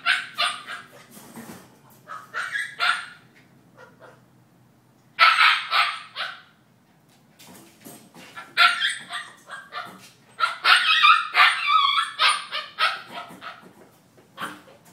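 Young husky barking and yelping in repeated bursts, coming thicker and faster in the second half.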